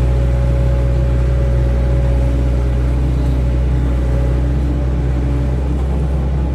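Hydraulic excavator's diesel engine running steadily at working speed, with a thin higher whine over it that fades out about five and a half seconds in.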